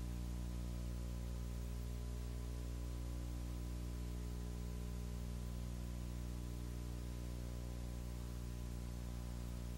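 Steady electrical hum with a buzzy stack of overtones over a constant hiss, unchanging throughout, with no other sound on the track.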